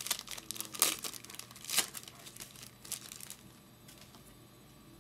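Foil wrapper of a Topps Chrome baseball card pack crinkling and tearing as it is opened by hand, a run of sharp crackles that stops after about three and a half seconds.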